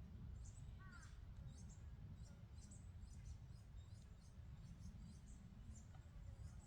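Faint, high-pitched bird chirps repeating about two a second, with one lower, downward-curving call about a second in, over a low wind rumble.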